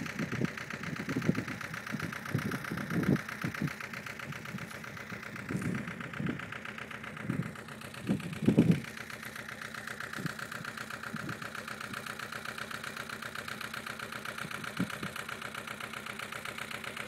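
Hatz diesel engine of a Dnepr motorcycle idling steadily, left running to cool down. Several low gusts of wind buffet the microphone in the first nine seconds.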